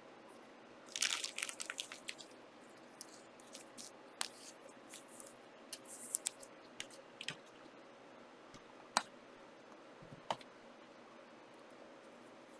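Trading cards and their packaging being handled: a dense burst of crinkling and crackling about a second in, then scattered sharp clicks and snaps.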